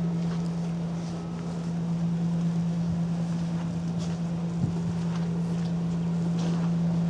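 A running engine drones steadily at one unchanging pitch, with wind rumbling on the microphone and a few faint clicks.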